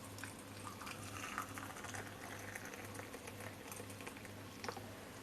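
Hot water in a cup of sliced lemon, ginger and honey, faintly bubbling and fizzing, with a few light clicks.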